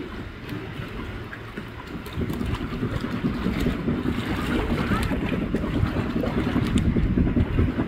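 Wind buffeting the microphone, a low gusty rumble that grows louder about two seconds in, over the wash of the sea.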